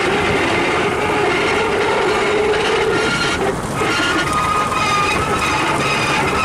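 A trawler's engine running steadily under load as it tows the trawl net: a loud continuous drone overlaid with thin high whining tones that shift in pitch, dipping briefly about halfway through.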